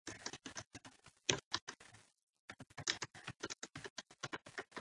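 Computer keyboard typing: a quick run of separate key clicks, pausing briefly about two seconds in before carrying on.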